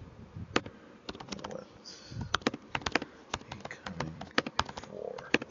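Typing on a computer keyboard: irregular, quick key clicks as a line of text is entered.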